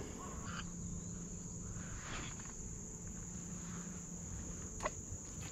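Insect chorus, a steady high-pitched drone, with one short click about five seconds in.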